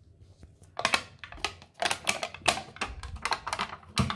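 Foil lid being peeled off a plastic dessert cup: an irregular run of sharp crinkling clicks and crackles that starts about a second in.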